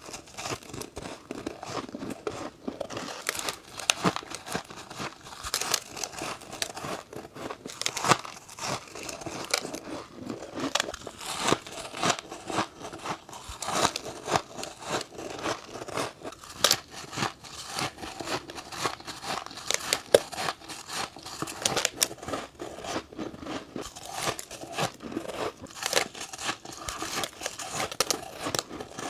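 Close-up biting and chewing of freezer frost: dense, irregular crisp crunches and squeaky crackles, several a second, with no pauses.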